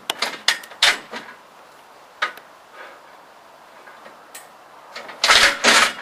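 Steel pins and bolts being fitted through the holes of a climbing-wall support leg and its bracket by hand: a run of sharp metallic clicks and knocks, then two louder, longer scraping sounds near the end.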